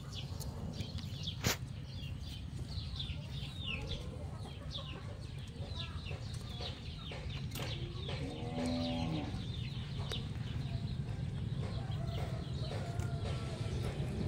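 Outdoor farmyard sounds: many short chirps from small birds, with a farm animal giving a call of about a second around the middle, over a steady low rumble. A sharp click comes about a second and a half in.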